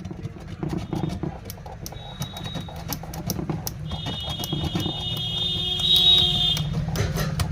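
Desoldering work on an amplifier circuit board: a steady low hum with scattered small clicks of tools on the board. A shrill high tone sets in about halfway and stops shortly before the end.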